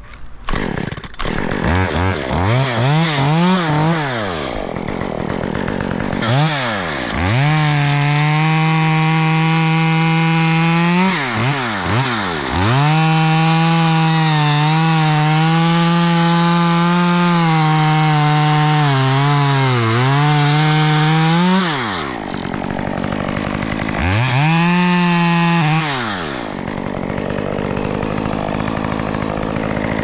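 Two-stroke chainsaw revved to full throttle and cutting through a white oak limb in two long cuts, its pitch sagging as the chain bites. It drops back, is blipped once more, then idles.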